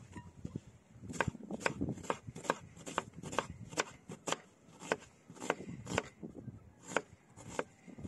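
A knife chopping food on a board in a steady run of sharp cuts, two to three a second, starting about a second in.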